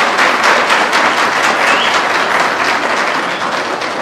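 Guests applauding, many hands clapping steadily, fading slightly towards the end.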